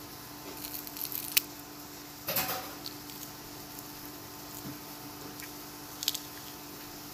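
Crisp food crunching and crackling close to the microphone as it is handled and bitten. A few sharp crackles come early, the loudest crunch a little over two seconds in, and one more crisp click near the end.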